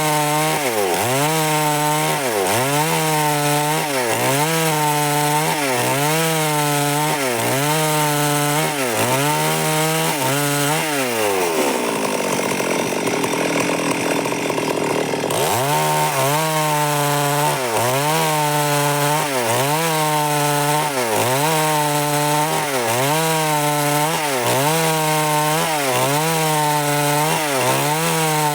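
Stihl MS 382 two-stroke chainsaw cutting wood, its engine pitch rising and falling in a regular rhythm about once a second. Near the middle the pitch glides down and holds steadier and lower for a few seconds before the rhythm resumes.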